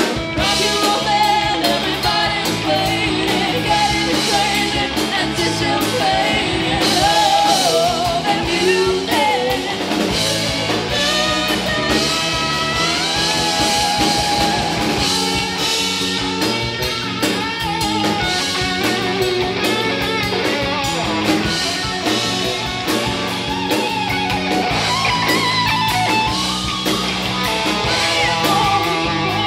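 Live rock band playing: female lead vocals over electric guitars and a drum kit.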